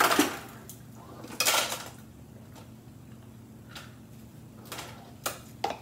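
A plastic cup being handled and drunk from: a short louder rush of noise about a second and a half in, then a few soft clicks and knocks over a faint steady hum.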